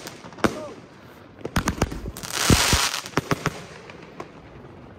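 Fireworks going off: scattered sharp bangs of shots bursting, with a dense burst of crackling about two and a half seconds in that dies away, then only a few faint pops near the end.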